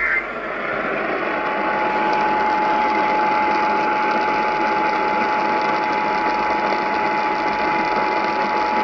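NOAA Weather Radio broadcast over a receiver with steady static hiss. The tail of the data burst of the SAME digital alert header cuts off just after the start. About a second later a steady single-pitch warning alarm tone starts over the hiss, which heralds a severe thunderstorm warning.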